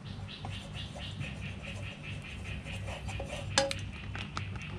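Rustling of a plastic zip bag being handled as freeze-dried chicken pieces are taken out, with light clicks and knocks of a wooden spatula against a metal skillet and one sharper click about three and a half seconds in. A steady low hum runs underneath.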